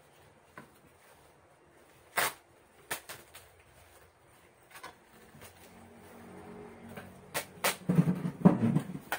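A few sharp knocks of a knife and vegetables on a wooden chopping board, then a louder, denser run of knocks and scraping near the end as a wooden chair is handled.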